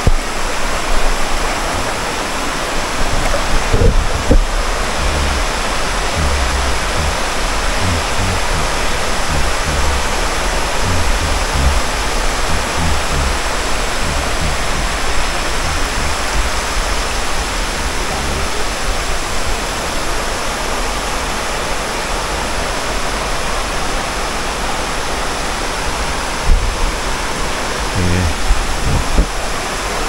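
Waterfall rushing steadily: an even, unbroken wash of falling water, with a few low thumps on the microphone.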